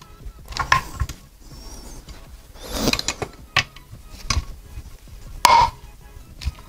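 Irregular metal clicks and knocks from a hand tool turning bolts on the crankcase of a Vittorazi Moster two-stroke paramotor engine, as the crankcase halves are drawn together over the crankshaft bearings. Some clicks ring briefly, and the loudest knock comes about five and a half seconds in.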